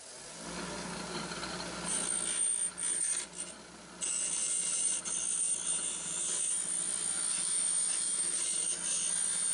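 Delta 6-inch bench grinder running with a steady hum. The cut end of a corrugated stainless steel flex pipe is pressed against the wheel to even it out, making a harsh grinding scrape in short bouts from about two seconds in, then steadily from about four seconds in.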